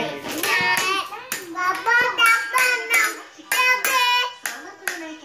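A young boy chanting in a high sing-song voice, clapping his hands along with short sharp claps.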